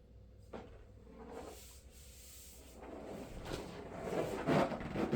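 Rubbing and scuffing as a new surfboard is handled and turned over, with short knocks. It grows louder in the second half.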